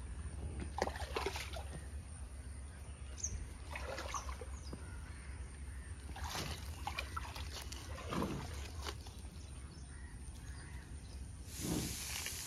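A small stream trickling, with intermittent rustling and crunching as a water buffalo grazes the bank plants.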